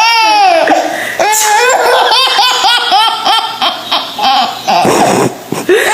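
A baby laughing: a high squeal, then a quick run of hearty belly-laugh giggles at about four a second, with a few more squeals near the end.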